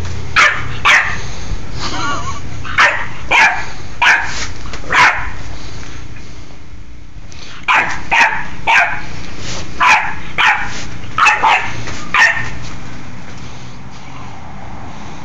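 A bulldog puppy barking in short, high-pitched yips, about fourteen in all, in two runs with a pause of a couple of seconds in the middle.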